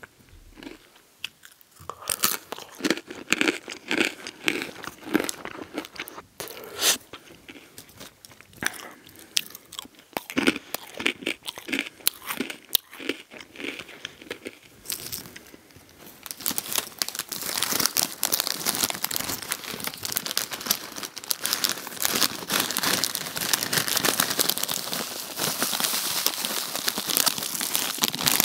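Hard pretzels crunched and chewed close to the microphone, with many sharp cracks. From about halfway through, a dense, continuous crinkling of the foil snack bag takes over.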